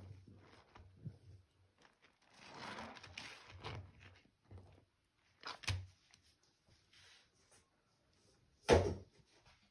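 A gloved hand swishing and squishing through foamy, powder-laden water in a sink. Two short sharp sounds cut through, one about six seconds in and a louder one near the end.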